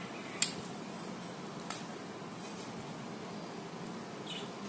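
Knife on a steel plate while slicing a soft steamed cake: two sharp clicks about a second apart, the first the louder, over steady background noise.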